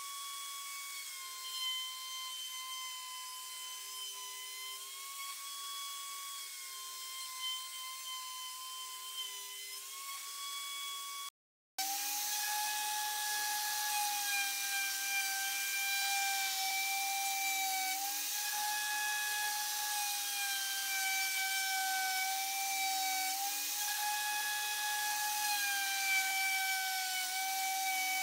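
Crown electric router running at full speed, its bit planing across a walnut-and-epoxy slab on a sliding sled: a steady high whine that steps slightly up and down in pitch as the bit takes load, with a cutting hiss over it. After a brief break about eleven seconds in, the whine comes back louder and lower.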